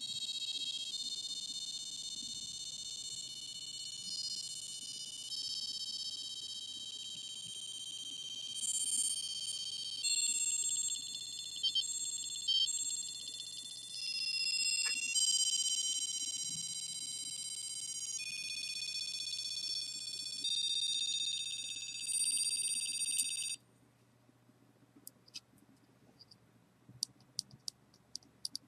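BBC micro:bit playing a techno-pop tune of held, buzzy electronic beep tones that step to a new pitch every second or two, with a few quick warbling notes in the middle. It stops suddenly about two-thirds of the way in, followed by a few faint clicks.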